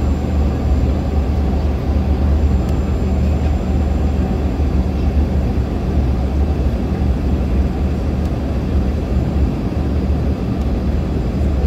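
Airliner cabin noise during the approach to landing: a steady low rumble of the jet engines and rushing air.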